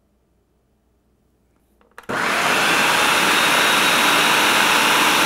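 Food processor motor grinding a wet herb sauce of parsley, capers, anchovies and olive oil: it switches on about two seconds in and runs steadily at full speed. Before that, near silence with a couple of faint clicks.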